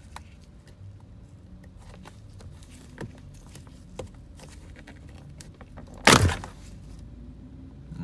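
Plastic dashboard switch panel being pried out with a pick: a few light clicks, then one loud snap about six seconds in as its retaining clips let go.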